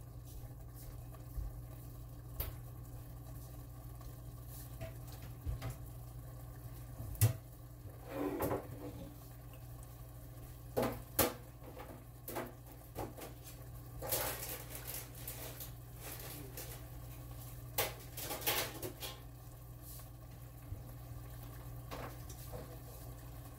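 Kitchen clatter: scattered clicks and knocks of dishes, pots and cupboards, with a few short rustles, over a steady low hum. A sharp knock about seven seconds in and another about eleven seconds in are the loudest.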